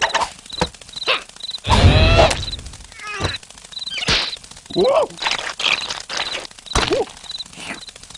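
Cartoon sound effects: squeaky, sliding character cries and yelps, with whacks and thuds and a loud noisy scuffle about two seconds in, over crickets chirping steadily in the background.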